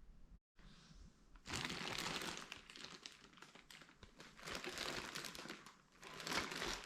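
Crinkling and rustling of a plastic bag or packaging being handled, in irregular bursts that start about a second and a half in and come again in stronger waves near the middle and end.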